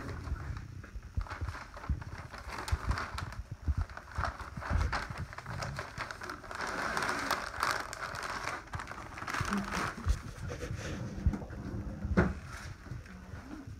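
Irregular clicks, knocks and crinkling from small items being handled, with a denser rustling stretch in the middle.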